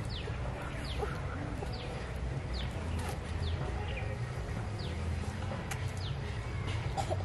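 A bird repeating a short, high, falling whistle at an even pace, a little more than once a second, over a steady low rumble.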